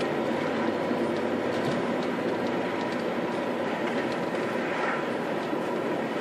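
Steady in-cabin driving noise of an Audi A4 Avant TDI on the move: tyre and road rumble mixed with the diesel engine running at cruise, heard through a dash-mounted phone.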